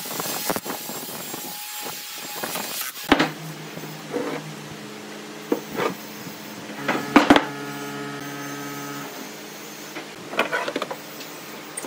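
Wooden workpieces being handled, knocking sharply against each other and the bench several times, over a steady low hum for several seconds in the middle.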